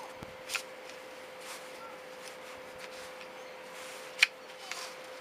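A few sharp clicks and taps from metal parts being handled as the recoil starter's pulley is wound up tight, with one loud click a little past four seconds in. A faint steady hum runs underneath.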